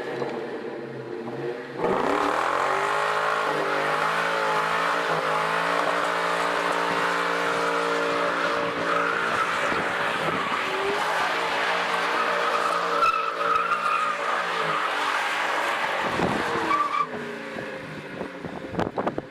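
Ford Mustang V8 held at high revs with tyres squealing, as in a burnout or donut. It comes in suddenly about two seconds in, holds a steady pitch, and fades near the end.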